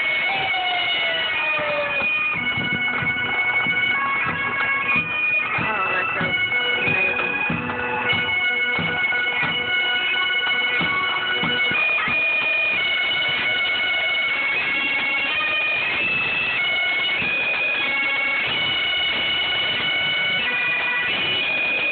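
Fire brigade pipe band playing a marching tune: bagpipes' melody over their steady drone, with drum beats underneath. A siren winds down in the first two seconds.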